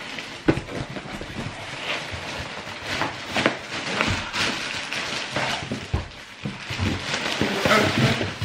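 Clear plastic packaging crinkling and rustling while a cardboard box is shifted about and knocked. A plastic-wrapped horse blanket is being pulled out of the box, with many small crackles and a few knocks along the way.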